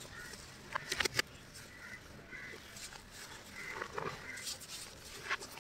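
Hands squeezing and crumbling a heap of powdery chalk: soft crunching and rustling, with a few sharp crackles about a second in and again near the end.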